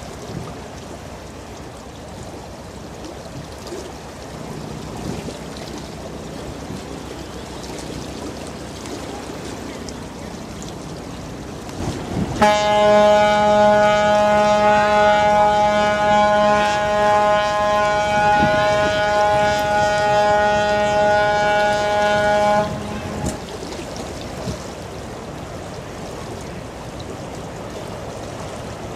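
A ship's horn sounds one long blast of about ten seconds at a dead-steady pitch, rich in overtones, starting about twelve seconds in and cutting off sharply. Behind it runs a steady rush of wind and moving water.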